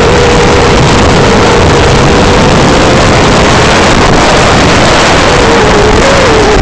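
Nazgul5 five-inch FPV quadcopter's brushless motors and propellers whining in flight, holding a steady pitch that wavers and dips briefly near the end as the throttle changes, with wind noise over the microphone.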